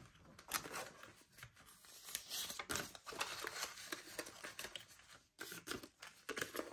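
Paper banknotes being handled, flicked and shuffled through by hand: a run of faint, irregular rustles and crinkles.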